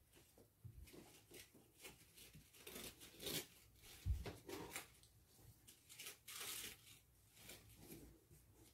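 Faint rustling and scraping of a ribbon strip and hands against a cardboard poster board, in short scattered bursts, with one dull thump about four seconds in.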